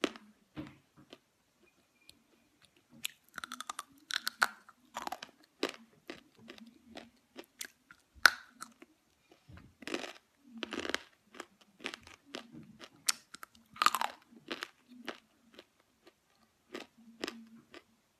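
Dry chunks of Ural edible clay being bitten and chewed close to the microphone: a run of sharp, irregular crunches, with several louder bites spread through.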